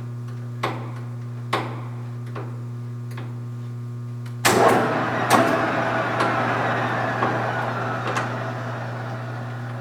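Kingston HJ-1100 lathe gearbox levers clicking a few times while a threading gear is felt for. About halfway through the headstock gears start with a sudden clunk and whir, falling in pitch as they spin down over the next few seconds.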